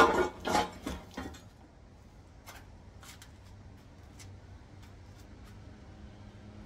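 Parts being handled on a workbench: a short clatter of several quick knocks in the first second or so, then a few light clicks.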